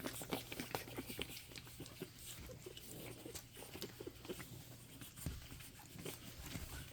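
Five-week-old pug puppies moving about at close range: faint, scattered small clicks and scuffles throughout, with no barking.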